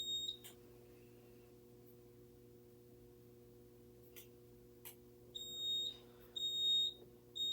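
Notifier AFP-200 fire alarm control panel's sounder beeping a high steady tone. One beep cuts off just after the start; then, after a few seconds of low steady hum and a couple of clicks, three more beeps come near the end. The panel is signalling trouble after being powered up with nothing wired to it.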